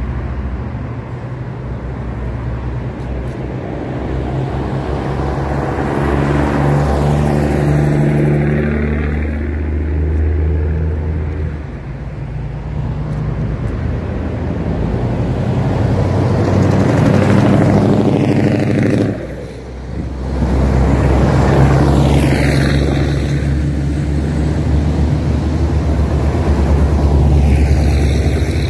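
Road traffic driving past one after another, several vehicles swelling and fading over a steady low engine rumble.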